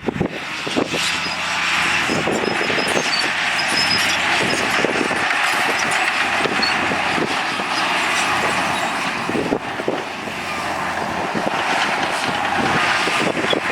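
Heavy diesel construction machinery running steadily under load, with scattered knocks and clanks.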